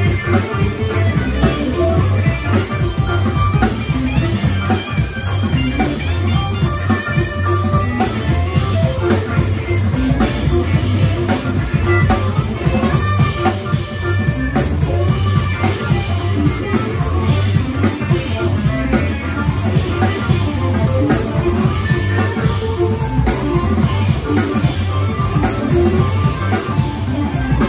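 Live instrumental funk from a trio of organ, electric guitar and drum kit, played loud and steady throughout, recorded on a phone.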